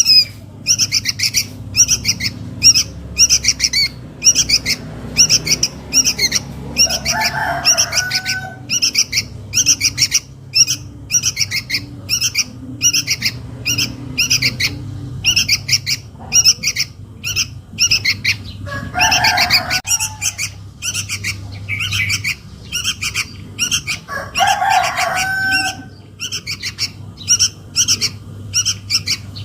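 Sooty-headed bulbul chick begging calls: a rapid, unbroken series of short high chirps, about two or three a second, the call a young bulbul uses to summon its parent. Three times a lower, fuller bird phrase cuts in over them.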